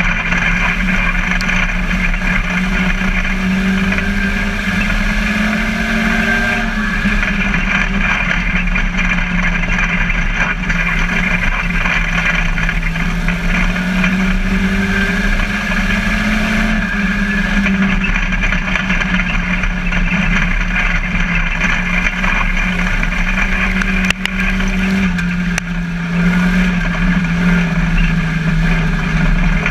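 Ministock race car's engine heard from inside the car while racing, running hard with its pitch climbing and falling back in slow waves, about every ten seconds, over constant car and track noise.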